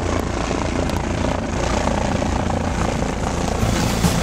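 Light helicopter flying low overhead, its rotor and engine running steadily. It grows louder near the end as it comes almost directly above.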